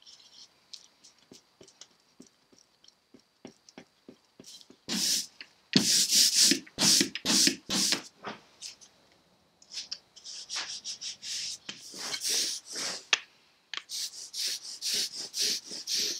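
Faint clicks and scrapes of a palette knife working linocut ink. From about five seconds in come loud rasping strokes of an ink roller rolled back and forth, roughly two a second, with a short lull partway.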